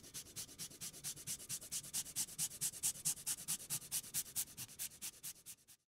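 A fine rasp grater scraping food in quick, even strokes, about seven a second, stopping abruptly near the end.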